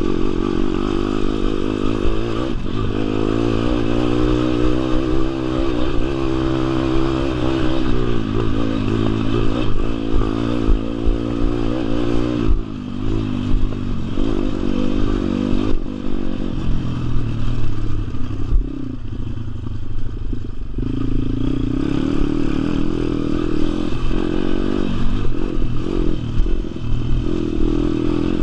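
WPB 160R pit bike's 160cc four-stroke single-cylinder engine running under load on a dirt track, its pitch climbing and falling as the throttle is opened and shut, with brief drops a few times where it comes off the gas. Clattering and scraping from the bike over the rough ground runs underneath.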